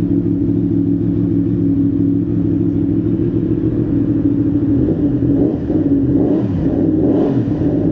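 Yamaha MT-10's crossplane inline-four engine idling steadily just after being started with a newly fitted air filter, with a few quick throttle blips in the second half. It runs without fault codes.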